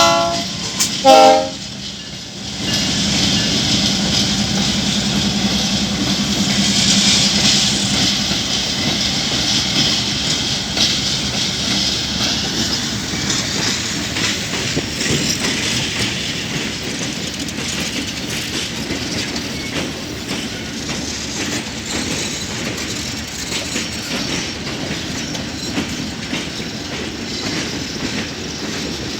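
Diesel freight locomotive's multi-tone air horn: the end of one blast, then a short second blast about a second in. It is followed by a freight train rolling past, with wheels clacking over the rail joints under a steady rush of wheel-and-rail noise that slowly eases off.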